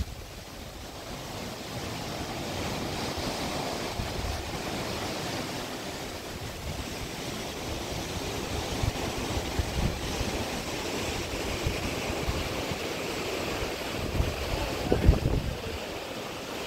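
Steady rush of open-sea water below a cruise ship, with wind buffeting the microphone in low gusts, strongest near the end.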